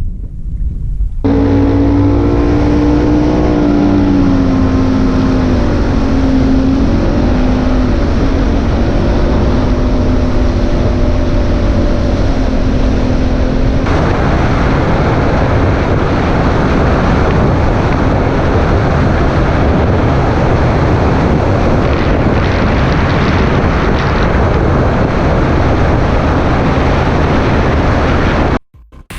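Bass boat's outboard motor running, its engine note wavering in pitch. About halfway through, the note is swallowed by a steady rush of wind and water as the boat runs at speed. It cuts off suddenly just before the end.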